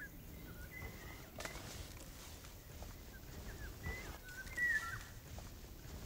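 Eurasian golden oriole singing short whistled phrases in two spells, one at the start and another about four seconds in.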